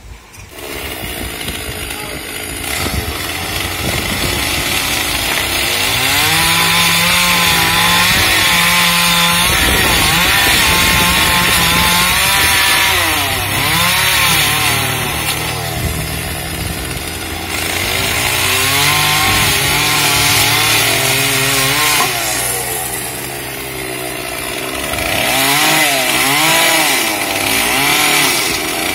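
Chainsaw running, its engine revving up and down again and again as it cuts into tree branches; it starts about half a second in.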